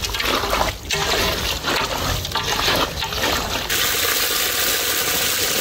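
Hands mixing raw chicken pieces with turmeric in a large metal pot, with irregular wet handling sounds; about two-thirds of the way through, a steady stream of water starts pouring into the pot to wash the chicken.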